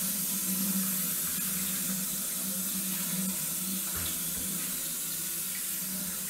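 Kitchen tap running in a steady stream onto soaked wheat grains in a plastic colander, the water splashing through the grains as they are rinsed by hand, with a low steady hum underneath.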